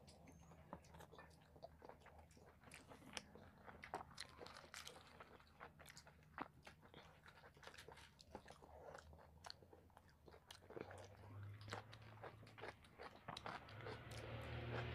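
Two people eating chicken curry and luchi by hand: faint chewing and biting, with many quick soft clicks and mouth smacks, over a low steady hum.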